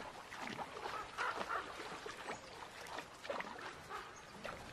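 Faint, scattered animal calls, short and several of them falling in pitch.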